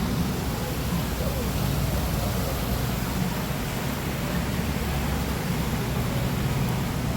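Steady rushing noise with a low, unsteady rumble underneath.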